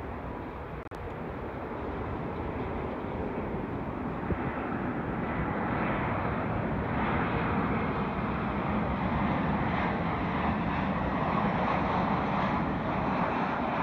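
Jet engines of a Boeing 737 airliner on final approach: a steady roar that grows louder as the plane closes in and is loudest near the end.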